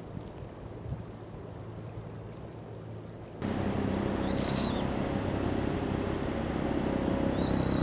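A wild bird gives two short, harsh high calls a few seconds apart, over a steady low hum that becomes suddenly louder about three and a half seconds in.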